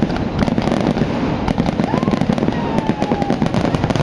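Fireworks display: a rapid, continuous barrage of bangs and crackling, many bursts a second, with a thin whistle that rises and then slowly falls about halfway through.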